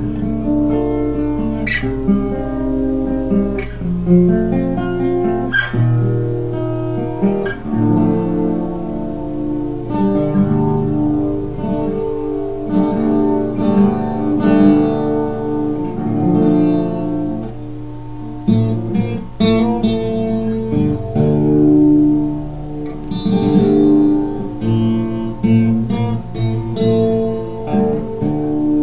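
Acoustic guitar played solo, a continuous run of plucked notes and chords.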